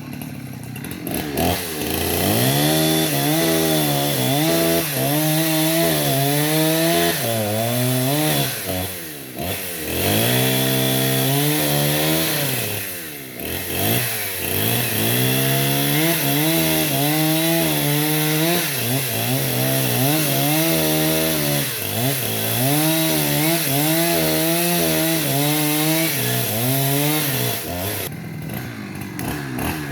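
Two-stroke chainsaw cutting into a teak trunk, its engine pitch wavering up and down as it labours in the wood. The revs drop away briefly twice, about nine and thirteen seconds in, then pick up again.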